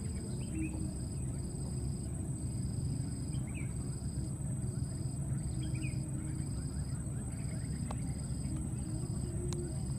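Outdoor insect chorus: a steady high-pitched insect drone with a chirping call repeating every half second to a second, over a steady low rumble. A few faint short upward chirps come and go.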